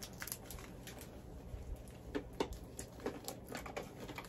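Faint, scattered crinkles and clicks of a plastic snack wrapper being handled, growing more frequent about halfway through.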